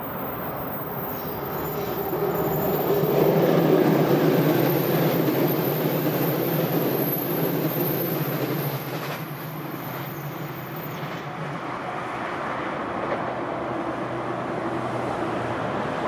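Electric passenger train passing at a level crossing on a curve, its wheels and running gear loudest about three to five seconds in and then easing off. A thin high squeal stops about eleven seconds in, over the ringing of the crossing's warning bell.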